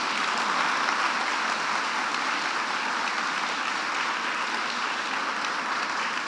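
Audience applauding steadily: a dense crackle of many hands clapping.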